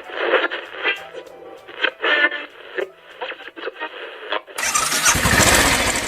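Edited-in music. A thin, tinny passage that sounds as if it comes through a radio, then about four and a half seconds in a noise sweep swells up as a build-up into a loud electronic dance track.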